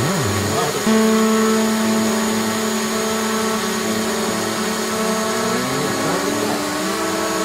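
DJI Mavic Pro quadcopter's motors and propellers whining as it hovers close by: a steady hum of several tones that shifts in pitch and rises about two-thirds of the way through.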